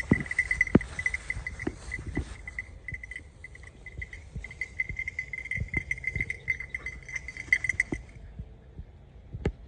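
Footsteps thudding and brushing through grass as someone walks a field. Under them runs a steady, rapidly pulsing high-pitched tone that cuts off abruptly near the end.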